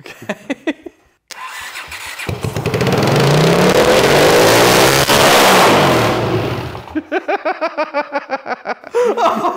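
Honda CX500's V-twin engine catching on starting fluid and running loudly for about five seconds, its revs climbing and then falling away before it cuts out.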